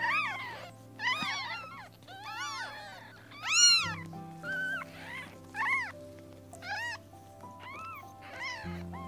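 Young kittens mewing again and again: about ten short, high cries, each rising and falling in pitch, some overlapping. Background music with sustained chords plays underneath.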